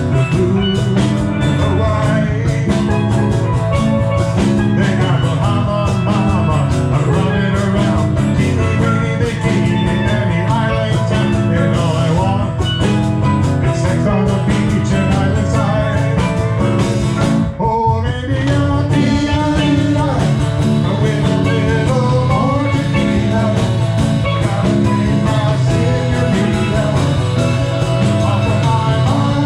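Live band playing an upbeat rock-country tune with guitar, bass and drum kit, and a voice singing. The music drops briefly about two-thirds of the way through, then carries on.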